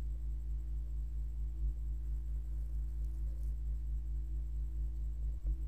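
Steady low electrical hum, a mains hum picked up by the recording microphone, with a faint click near the end.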